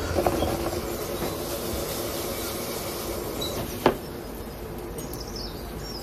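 Pieces of mackerel para pickle frying in oil in a pan, a steady sizzle. A single sharp tap about four seconds in.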